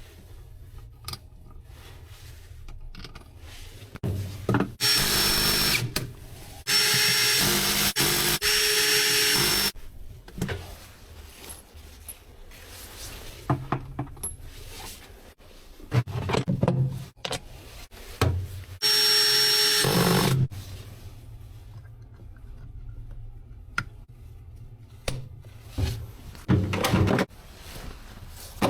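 Cordless power drill-driver running in three bursts of a few seconds each, a steady whine, as fasteners on a top-loading washing machine are undone during its teardown. Knocks and clicks of parts being handled come between the bursts.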